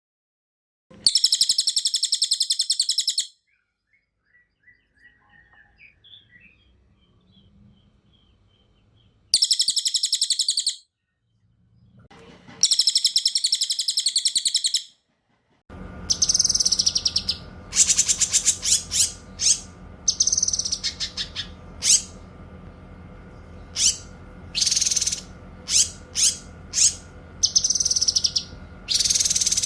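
Cililin and cucak kinoy songbirds singing in turn, as a tutor recording for cage birds. There are three bursts of rapid, high trilling of about two seconds each, with quiet gaps holding faint chirps. About halfway through, a string of short, sharp, high calls and trills begins over a steady background hum.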